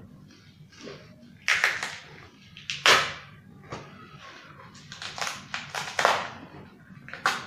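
Packaging being torn and rustled off a new exhaust muffler: a run of short, noisy rips and crinkles, the sharpest about three seconds in.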